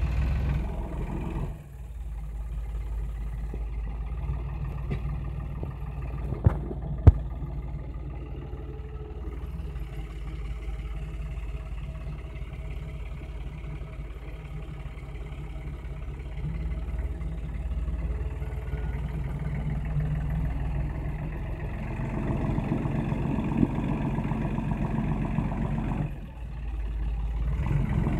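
Massey Ferguson 277G tractor's diesel engine running under load while its rear implement rips out hazelnut stumps, the engine note rising and falling as the load changes. Two sharp knocks about six and seven seconds in.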